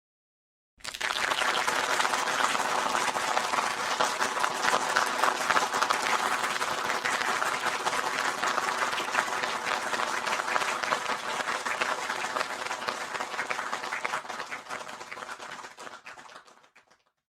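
Audience applause: dense crowd clapping that starts abruptly about a second in, holds steady and fades out near the end.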